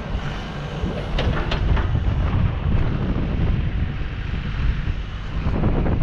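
Yanmar SV100-2A mini excavator's diesel engine running, with wind buffeting the microphone and a few sharp metallic clanks about a second in.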